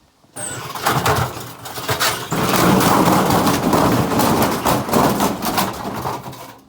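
Candy washing machine with a brick loose in its drum, banging and clattering rapidly as the drum turns. The racket starts suddenly, grows louder about two seconds in, and dies away near the end.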